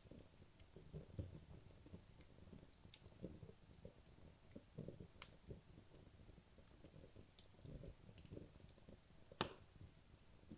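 Wood logs burning in a fireplace: quiet, irregular crackling with scattered small pops and a low rumble of flame, with one sharper pop about nine seconds in.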